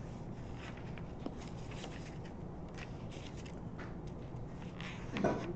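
Quiet room tone with a steady low hum and faint scattered ticks and rustles. Near the end comes a brief sound from a person's voice.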